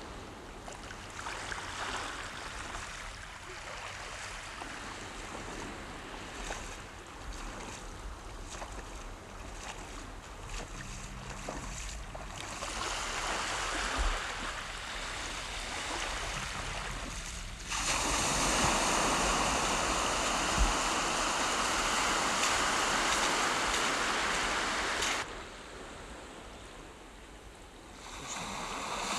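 Sea surf washing on the shore. Past the middle comes a several-second stretch of much louder rushing water that starts and stops abruptly.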